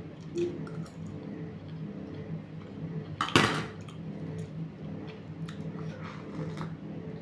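Spoon and crockery clinking lightly as a meal is eaten at a table, with a louder rasping noise about half a second long a little before the middle, over a steady low hum.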